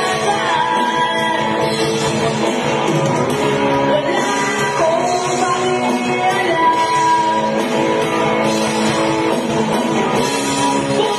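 Rock band playing live: a singer singing over electric guitars, bass guitar and drums.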